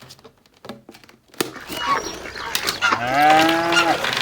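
A cow mooing: one long moo that builds from a breathy start about a second and a half in and sounds clearly for its last second. A few faint ticks come before it.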